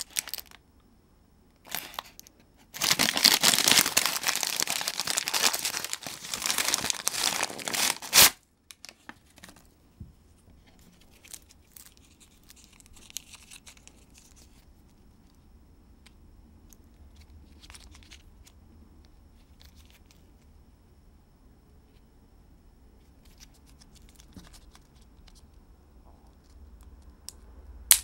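Paper bag being torn open and rustled for about five seconds, then faint crinkles of packaging being handled. A sharp snap near the end as a ketchup-and-mustard dual packet is bent open.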